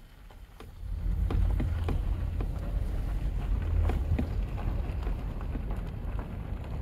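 A car driving along, heard from inside: a low rumble of tyre noise and wind buffeting the microphone that comes up about a second in, with scattered sharp clicks like gravel popping under the tyres.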